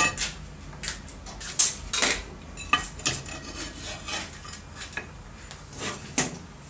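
Irregular metal clinks and knocks as an old circular saw's metal blade guard is worked loose and lifted off the motor housing, with the loudest knocks about a second and a half to two seconds in and again about six seconds in.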